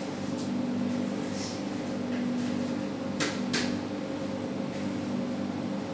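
Steady fan hum from a kitchen appliance, with two sharp clinks about a third of a second apart a little past three seconds in, as a pot lid is handled at the gas stove.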